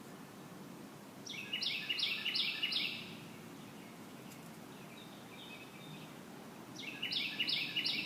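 A songbird singing a phrase of about four quick repeated notes, twice, with a fainter call between, over steady outdoor background noise.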